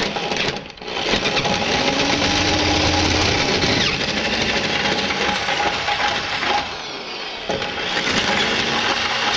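Electric drill boring a 1-inch hole through a steel pickup-truck frame, the motor running steadily under load. It stops briefly less than a second in and starts again, and runs lighter for a moment about two-thirds of the way through before bearing down again.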